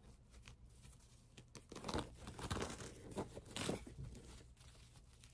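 Faint rustling and crinkling of craft materials being handled, in a few short rustles between about two and four seconds in.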